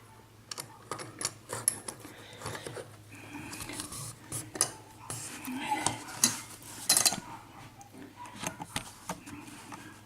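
Small metal clicks and clinks, irregular and scattered: lock-picking tools and the mortise lock being handled and set up.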